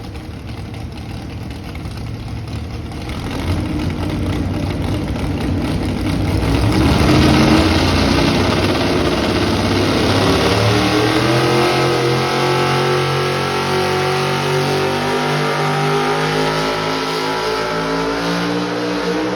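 Four-wheel-drive pulling truck's engine running hard under full throttle during a truck pull, building in loudness over the first several seconds, then holding a high, steady pitch as it drags the sled.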